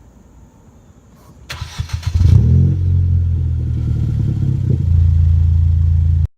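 2015 Ford Fiesta ST's turbocharged 1.6-litre four-cylinder started through a catless downpipe and Tsudo aftermarket exhaust: the starter cranks briefly about a second and a half in, the engine catches with a loud flare, then settles into a steady idle. The sound cuts out abruptly just before the end.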